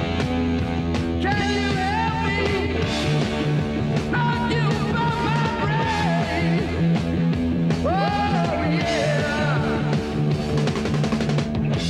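Rock music with a steady beat, sustained bass notes and lead lines that slide up and down in pitch.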